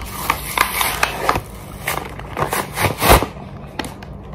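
Clear plastic blister packaging of a slime kit being handled and opened: irregular crackles, clicks and rustles, with a louder knock about three seconds in.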